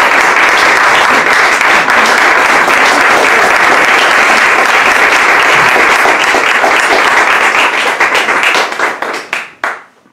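Audience applauding, steady and loud, thinning to a few scattered claps near the end before stopping.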